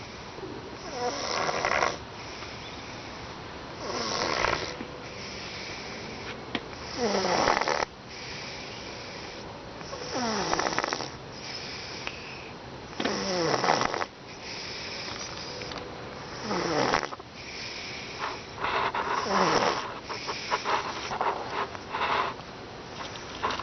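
Domestic cat snoring loudly in its sleep: a raspy snore about every three seconds, each one falling in pitch.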